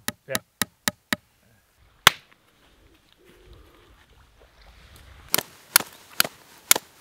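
A hammer tapping nails into a weathered wooden plank, five quick taps about four a second, then one louder knock. Near the end, a flint being struck against a steel striker, four sharp strikes about two a second.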